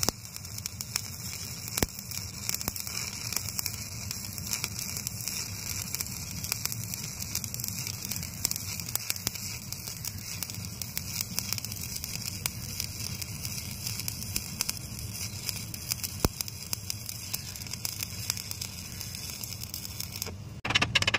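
Stick (arc) welding on mild-steel checker plate, the electrode running a bead across a 6 mm gap: a steady crackling hiss with scattered sharp pops. The arc breaks off near the end and a louder scraping follows.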